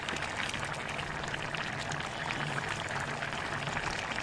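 A large pot of fish and cauliflower curry bubbling at a boil, a steady, dense patter of small pops and gurgles.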